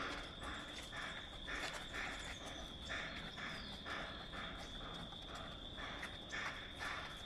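A group's feet stepping and scuffing together on a concrete slab in a steady rhythm, about two to three steps a second. A steady high insect drone runs underneath.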